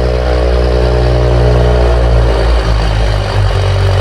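Car engine idling steadily, its note dropping slightly a little past halfway as the revs settle.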